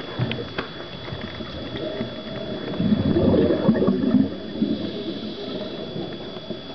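Underwater recording: a diver's breathing-regulator exhaust bubbles gurgling in one loud burst of about a second and a half near the middle, over scattered small clicks and a steady thin high whine.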